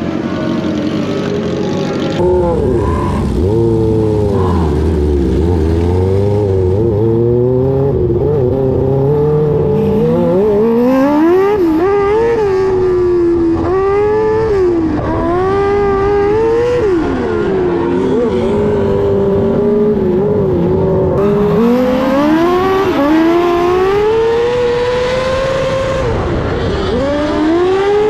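A 600cc micro sprint's motorcycle-type engine, heard from the car's onboard camera, revving up and down as it races through the corners of a dirt track. Other micro sprints' engines rise and fall around it. The engine pitch climbs steadily from a few seconds in, then swings up and down over and over.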